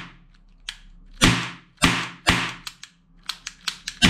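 Toy revolver being fired: four sharp bangs, each ringing out for about half a second, with a quick run of four lighter clicks just before the last bang near the end.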